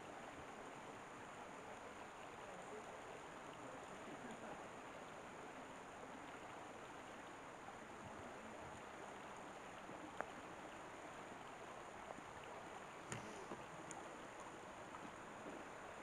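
Faint, steady rush of a shallow stream running over rocks, with a couple of small clicks in the second half.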